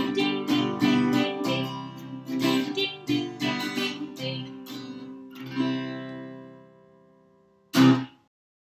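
Acoustic guitar strummed in a steady rhythm, about two strums a second, as the closing chords of a song; the last chord rings out and fades away. Near the end one short, loud strike, the loudest sound here, cuts off abruptly.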